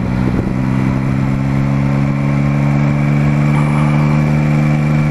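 Yamaha Tracer motorcycle engine running steadily at low revs in second gear while the bike rolls slowly along.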